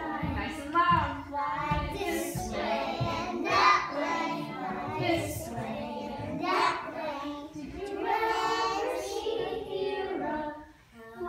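Young children singing an action song together, the melody continuing with short breaks between phrases, with a few low thumps near the start.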